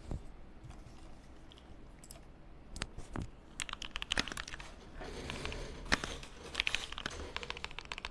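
Computer keyboard keys clicking: a few single clicks about three seconds in, then rapid typing.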